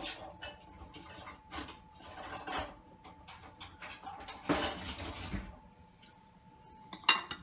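Dishes and utensils clattering as a spatula is dug out of a dishwasher rack: scattered clicks and knocks, a longer rattle about halfway through and one sharp clack near the end.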